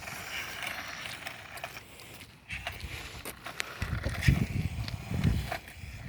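Small toy remote-control car driving over the ground, its motor and plastic wheels making a light rattling noise, with scattered clicks and low gusts of wind on the microphone.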